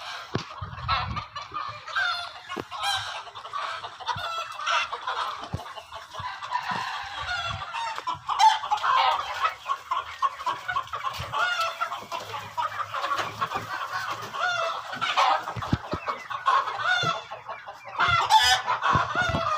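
A flock of desi chickens clucking and calling over one another without a break, many short overlapping calls at once, with a few low thumps.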